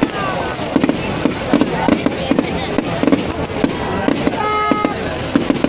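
An aerial fireworks display going off: rapid irregular bangs and crackles over a steady din of crowd noise. About four and a half seconds in, a short steady horn-like tone sounds.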